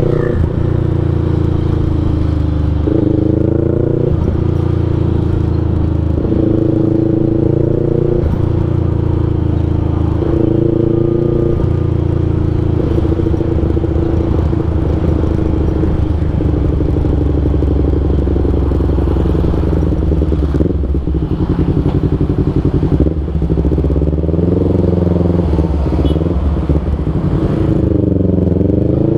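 Yamaha MT-25's parallel-twin engine running through an R9 H2 full-system aftermarket exhaust, heard from the rider's seat on the move. The revs rise and fall over and over, with a steadier stretch in the middle.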